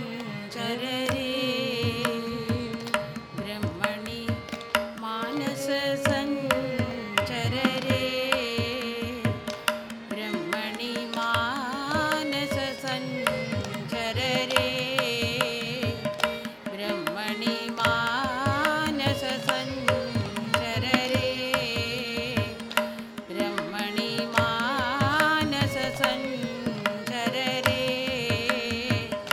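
Carnatic music: women singing an ornamented, sliding melody in repeated phrases, accompanied by violin and a mridangam's quick strokes over a steady drone.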